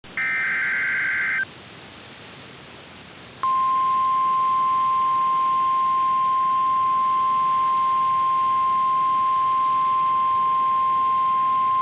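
NOAA Weather Radio emergency alert over a hissy radio signal: a short burst of SAME header data tones, a couple of seconds of static, then the steady single-pitch Warning Alarm Tone starting about three and a half seconds in.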